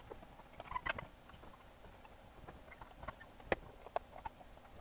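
Faint, scattered clicks and taps as electrolytic capacitors are pressed by hand into a circuit board, their leads going through the holes; the sharpest click comes about three and a half seconds in.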